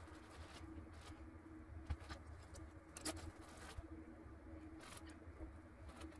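Faint steady low hum with a few soft, short clicks and taps as a paintbrush works oil paint onto a canvas.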